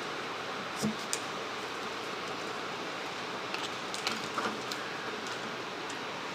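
Trading cards being handled and slid through one at a time: a few light clicks and flicks over a steady background hiss.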